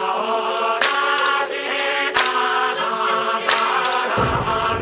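Background music: sustained chords, possibly choir-like vocals, over a beat that strikes about every second and a third, with bass coming in about four seconds in.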